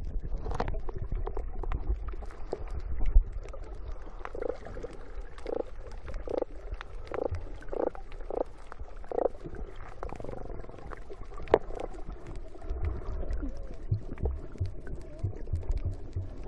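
Muffled underwater sound from a phone's microphone submerged in seawater: low rumbling water movement with scattered clicks and, from about 4 to 9.5 s in, a run of short bubbling gurgles about one every 0.7 seconds.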